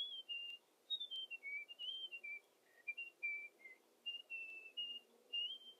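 A tune whistled by a person: a run of clear, high, short notes stepping up and down, with brief gaps between phrases.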